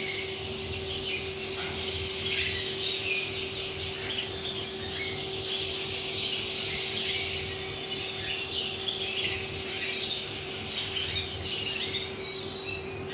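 Domestic canary singing a long, unbroken song of rapid trills and rolls, with a steady low hum beneath it.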